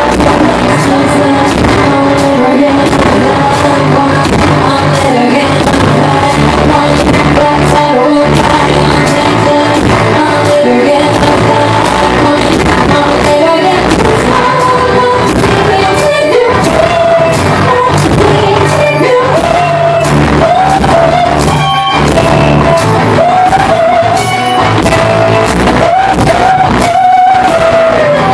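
Live band music in a large room: a guitar-bass hybrid (the 'gase') and a foot-played kick drum keeping a steady beat, with a woman's high singing voice that comes to the fore about halfway through.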